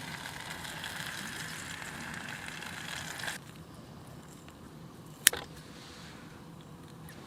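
Food sizzling in a frying pan, a steady hiss that cuts off abruptly a little over three seconds in. Then a quieter background with a single sharp click.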